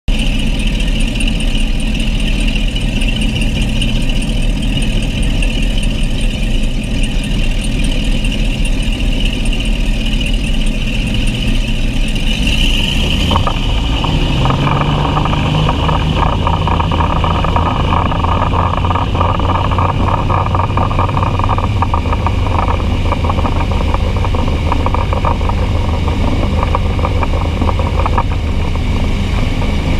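A Volvo Penta sterndrive engine running on an SX duoprop outdrive in the water, with exhaust water splashing and spraying around the drive. About 13 seconds in, the engine note rises a little and a loud rattling splash of spray comes in over it. The heavy spray from the drive exhaust is not caused by a clogged exhaust, and the owner is unsure whether it is normal.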